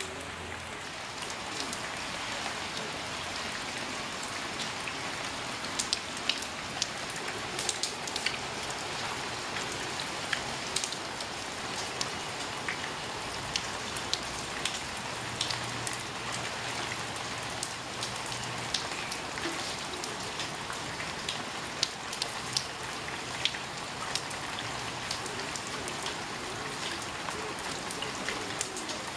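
Steady rain falling on a wet path and puddles, with sharp single drops clicking close by throughout.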